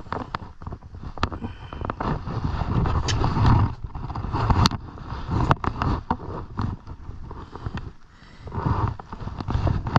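Hand tools working on old wooden deck boards while nails are pulled and handled: scattered sharp knocks and taps of metal on wood, with scraping and handling noise in between.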